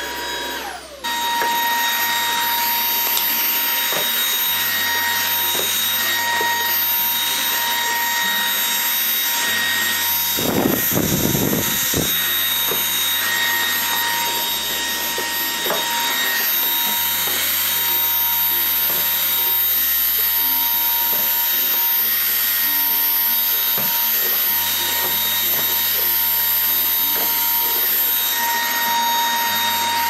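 Shark IONFlex DuoClean cordless stick vacuum running steadily on a hard floor, a constant motor whine over airflow noise, with one brief louder rumble about ten seconds in.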